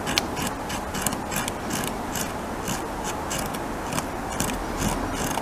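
North American beaver gnawing into a large tree trunk, its incisors tearing off wood chips in a rhythmic series of crisp scraping bites, about three or four a second.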